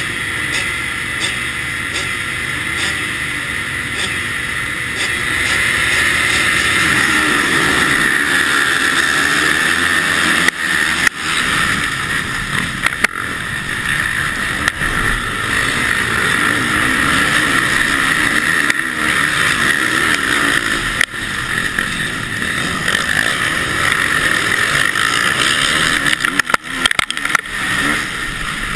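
KTM motocross bike engine heard from on the bike itself, running at the start gate and then at hard throttle while racing in a pack of other motocross bikes. The level rises about five seconds in as the race gets going, with a few brief drops in the engine note along the way.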